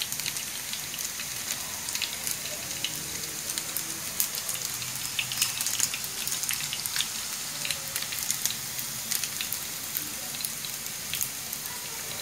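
Beef sausages frying in a non-stick pan: a steady sizzle dotted with frequent small pops and crackles of spitting fat.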